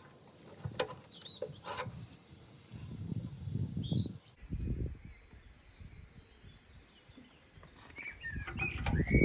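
Small birds chirping in short calls, over intermittent clicks and low rustling and knocking from hands working on the dumper's joystick wiring and shroud.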